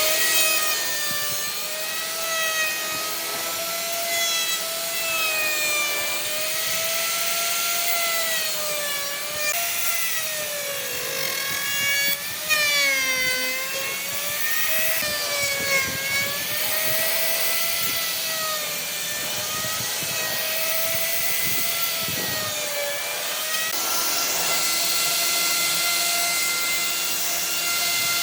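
A handheld power tool working wood, its motor whining steadily with a pitch that dips and rises as the load on the wood changes, over a rasping hiss of material being cut or abraded.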